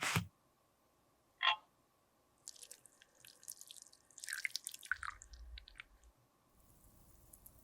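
Close-up handling sounds of makeup being worked by hand: a sharp tap at the start, a short pitched plip about a second and a half in, then a few seconds of fine crackling and scraping.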